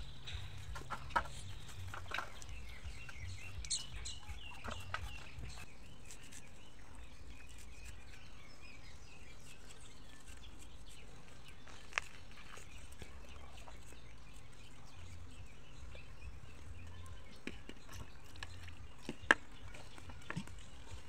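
Chickens clucking, with a few sharp knocks; the loudest, near the end, comes as the lid of a metal cooking pot is handled.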